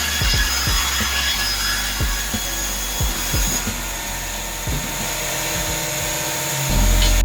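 Band resaw running and cutting through wood, a steady high sawing hiss with a few fixed whining tones. A bass beat of background music runs underneath and swells slightly near the end.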